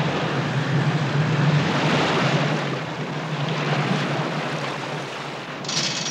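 Ship's engines droning in reverse under a steady rush of churning water, with a short hiss near the end.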